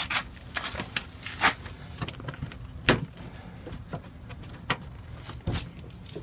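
Plastic retaining clips of a 2005 Subaru Impreza's door panel popping loose one after another as the panel is pried off the door: about five sharp snaps, the loudest about three seconds in. It sounds like the panel is breaking, but the clips are made to pop out like this.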